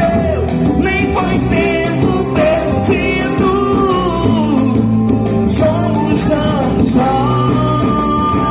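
Music: a song with a voice singing a melody over a band with bass and a steady beat, holding one long note near the end.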